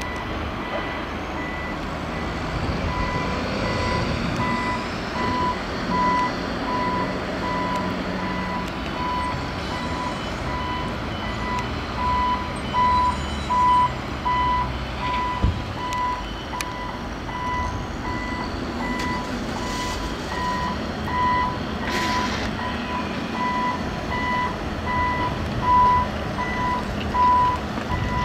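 Back-up alarm of a heavy construction vehicle beeping evenly and steadily while reversing, over the continuous rumble of diesel earthmoving machines working on the site.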